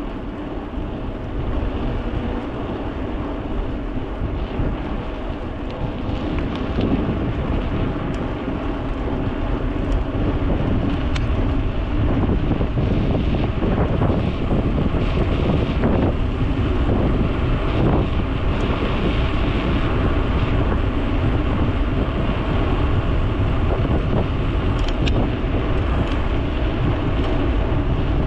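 Wind buffeting an action camera's microphone during a bicycle ride: a steady rushing rumble that grows louder about halfway through, with a few faint knocks.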